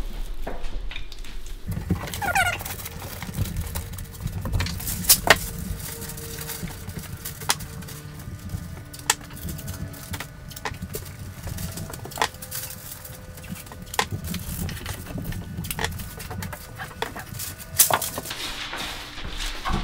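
Masking tape and masking paper being handled: tape pulled and pressed on, paper rustling, with scattered sharp clicks and taps and a brief squeak about two seconds in, over a low steady rumble.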